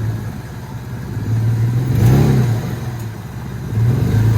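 Off-road vehicle engine running at a low, steady pitch and revving up twice, about two seconds in and again near the end, each rise falling back again.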